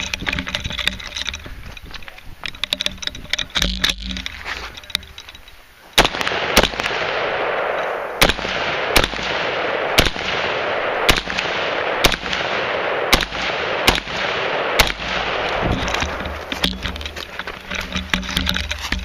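AR-15 carbine firing single shots in steady succession, about one a second, starting about six seconds in. Before that come quieter, scattered sharp cracks.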